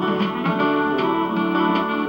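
Music played through the small speaker of a 1968 RCA Victor black-and-white portable tube TV: a slow instrumental passage of held notes that change every fraction of a second, with almost no bass.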